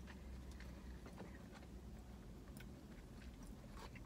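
Quiet eating sounds: faint chewing and soft clicks and crinkles from handling fast food, over a steady low hum inside the car.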